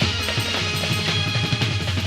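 Instrumental passage of Gujarati devotional folk music, with a drum kit and bass drum keeping a steady, dense beat under sustained melody instruments.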